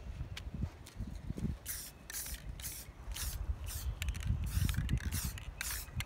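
Aerosol spray paint can spraying in a quick series of short hissing bursts, about two a second, starting about one and a half seconds in: light passes of paint over plastic whirligig blades.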